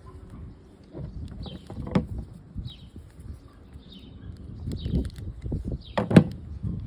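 Small clicks and knocks of carburetor parts being handled and taken off by hand, with a sharper knock about two seconds in and the loudest one about six seconds in.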